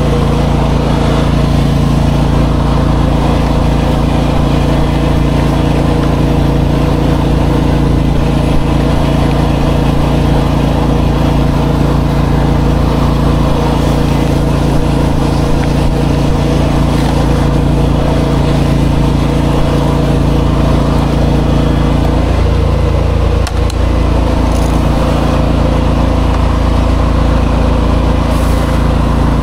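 Pressure washer's engine running steadily, with a brief change in its sound about three-quarters of the way through.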